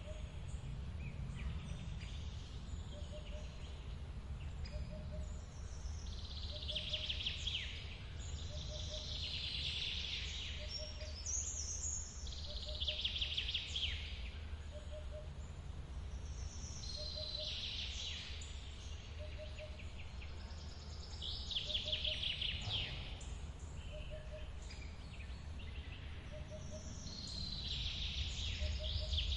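A waterfall's steady low rushing, with a bird singing short trilled phrases every few seconds over it. A soft low note repeats about once a second underneath.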